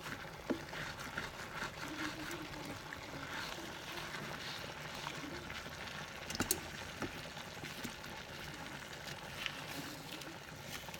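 Chicken and vegetable stir-fry simmering in teriyaki sauce in a stainless steel skillet while it is stirred with a spatula: a steady bubbling, sizzling hiss with soft scrapes and clicks of the spatula against the pan, and a couple of sharper knocks a little past the middle.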